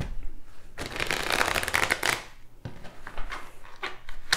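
A deck of tarot cards being riffle-shuffled by hand: a rapid flutter of cards flicking together for over a second, then softer riffling as the deck is bridged, and a sharp tap near the end.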